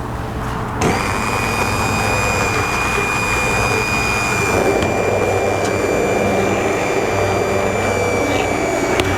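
Electric blender puréeing cooked potato and pumpkin soup: the motor starts about a second in and runs steadily with a thin high whine.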